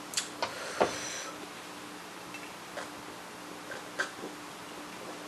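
Close-up eating sounds from crab legs: a few scattered soft clicks and mouth noises as the shell meat is chewed, the clearest about a second in, then small sounds near the end as an iced drink is sipped.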